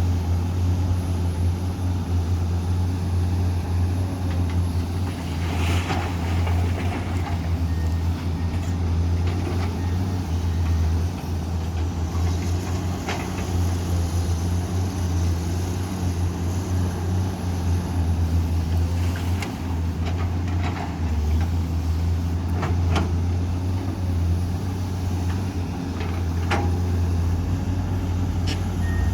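Komatsu PC210 excavator's diesel engine running steadily under working load, with a few sharp knocks and clanks scattered through.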